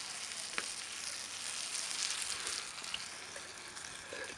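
Cast iron skillet of beans and ground beef sizzling steadily on a grill, with one sharp click about half a second in.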